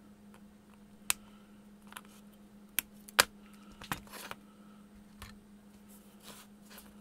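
Flush side cutters snipping component leads on a perfboard: four sharp clicks, the loudest about three seconds in, with softer rustles as the board is handled between cuts. A faint steady hum runs underneath.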